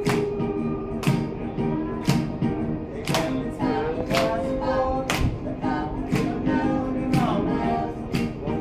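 Voices singing a song live over the strummed chords of a Suzuki Q-Chord. A sharp, steady beat comes about twice a second.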